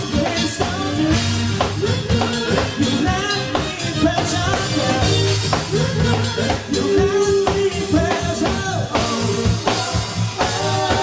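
Live band music led by a drum kit keeping a steady beat, with bass and keyboard notes.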